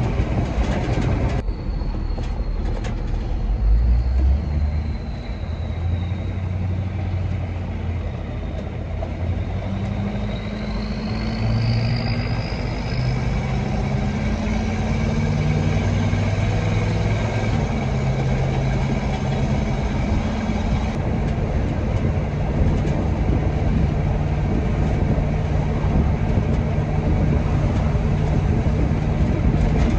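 Military truck under way, its engine running steadily over road noise, the engine note stepping up in pitch several times. A thin high whine glides down and then rises again in the first half.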